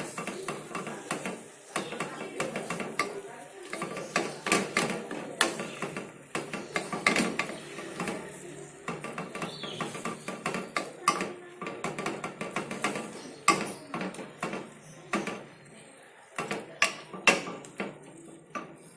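A utensil repeatedly clinking, knocking and scraping against a container while feathers are stirred in dye, in irregular strokes.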